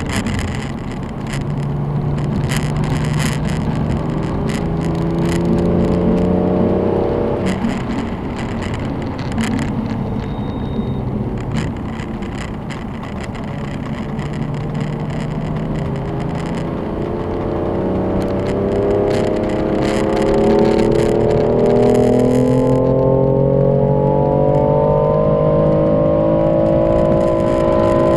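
Car engine accelerating under load, its pitch climbing slowly. About seven seconds in the note drops away sharply, then it climbs again in one long steady rise through the second half.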